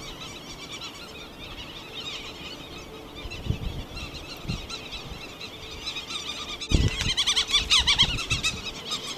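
Providence petrels calling: many short, overlapping calls that rise and fall in pitch, getting busier and louder about two-thirds of the way in. A couple of low thuds sound beneath them.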